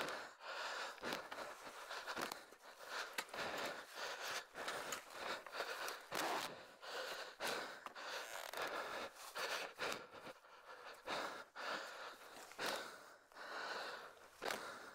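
Heavy, laboured breathing picked up by a microphone inside a motocross helmet, in irregular breaths about once a second, mixed with dry leaves rustling and crunching underfoot as the fallen dirt bike is wrestled upright. No engine can be heard running.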